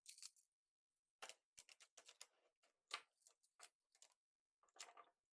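Magnetic building blocks clicking faintly together as square pieces are snapped into place, a scattered series of short clicks with one a little louder about three seconds in.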